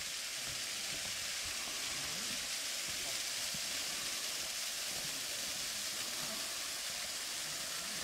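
Steady rushing hiss of a small forest waterfall pouring down a rock face.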